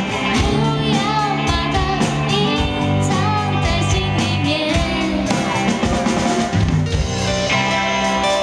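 Live amplified rock band: a woman singing with vibrato over strummed acoustic guitar, electric guitar, bass and a drum kit keeping a steady beat.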